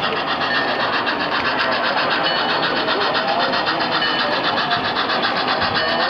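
Steady mechanical running noise with a fast, even pulse, from model trains running on a layout.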